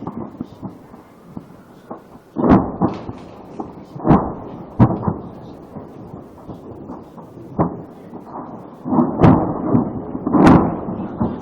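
Explosions in a burning ammunition depot: a string of heavy booms, about six, each followed by a rolling echo. The loudest comes near the end.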